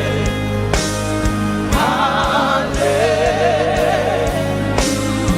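Live gospel worship music: a choir and singers holding long notes with vibrato over a band with a steady bass and keyboard chords.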